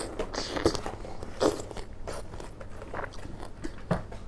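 A person biting into and chewing a ripe star fruit (carambola), with a few sharper bites standing out among the chewing.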